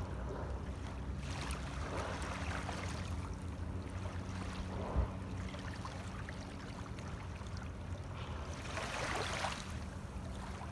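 Small waves lapping on a pebble shore, twice swelling into a louder wash, over a steady low hum. A single short knock about halfway through.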